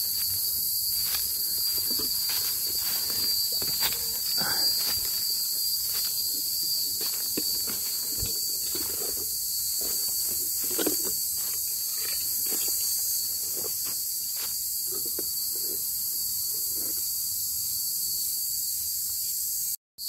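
A steady, high-pitched insect chorus, with scattered faint rustles and knocks beneath it. The sound cuts out briefly near the end.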